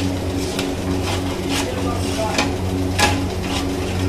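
Metal spatula stirring and scraping thick Mysore pak batter (gram flour, sugar and ghee) in a steel kadai, with a sharp scrape or clink about every half second. A steady low hum runs underneath.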